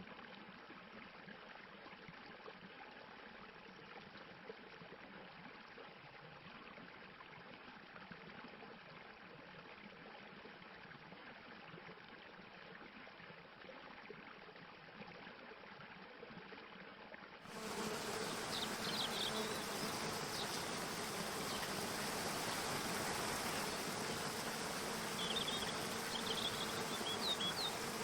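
Mountain stream rushing and splashing over rocks as a steady wash of water noise. About two-thirds of the way through it cuts abruptly to a louder, brighter stretch of rushing water, with a few short high chirps over it.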